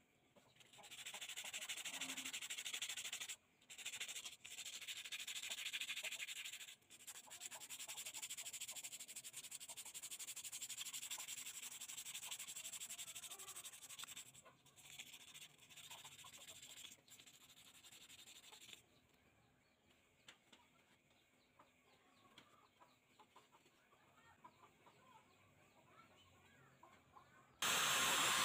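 Sandpaper rubbed by hand over a small steel blade: long stretches of scratchy rasping broken by short pauses, fading to a few light scrapes over the later part. Near the end an angle grinder with a sanding disc starts up, suddenly much louder and steady.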